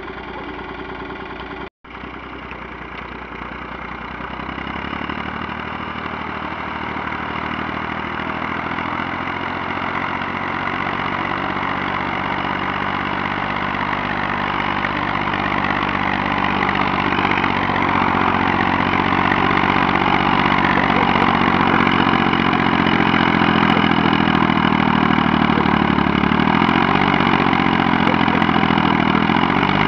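Tractor's diesel engine working hard under load while towing a stuck 4x4 through deep snow, its revs and loudness rising gradually as it pulls.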